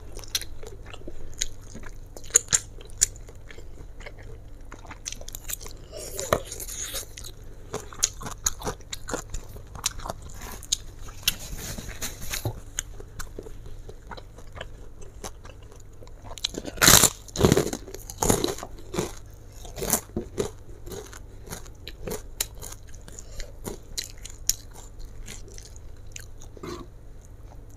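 Close chewing of a mouthful of fried flat rice noodles (kwetiau goreng) with many small wet mouth clicks, and a brief louder cluster of noise about seventeen seconds in.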